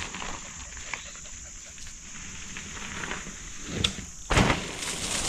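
Mountain bike tyres rolling over a dirt trail, a steady crackling noise, with a couple of heavy thumps about four seconds in.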